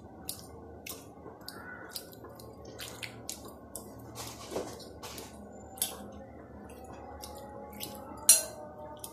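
A fork mashing hard-boiled egg whites in a glass bowl: irregular soft clicks of the fork against the glass, with squishing, and one louder clink near the end.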